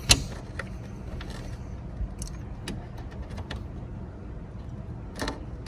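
Handling noise during a dashcam install: a sharp knock just after the start, then scattered light clicks and a louder rustle about five seconds in, over a low steady hum.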